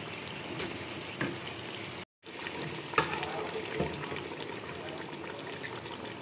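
Masala simmering in a metal pot with a steady bubbling hiss, broken by a few clinks and soft knocks as fried chicken pieces go into the pot. The sound cuts out briefly about two seconds in.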